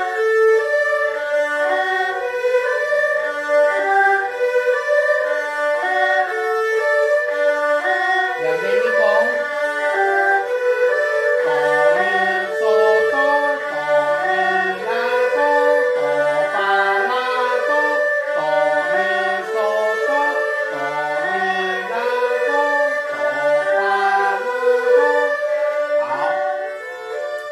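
Erhu playing a broken-chord arpeggio exercise through C major, A minor and F major chords (do-mi-sol-do, do-mi-la-do, do-fa-la-do), two notes to each bow stroke, in a steady stepping pattern that repeats over and over.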